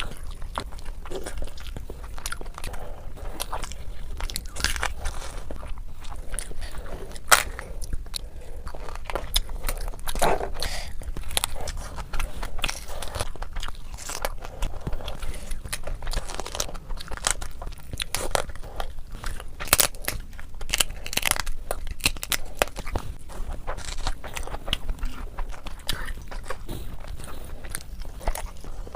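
Close-miked eating: chewing and biting with frequent irregular crunches and sharp clicks.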